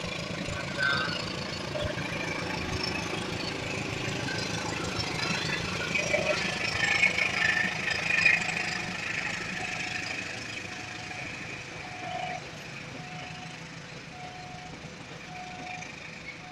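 Train passing slowly over a level crossing, a steady rumble with a louder stretch in the middle. From about ten seconds in, a level-crossing warning alarm sounds a single beep about once a second.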